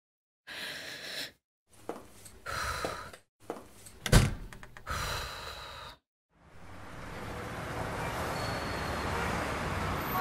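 A woman's sighs and distressed breathing, broken by a sharp thump about four seconds in. After a brief silence, steady city street traffic noise takes over.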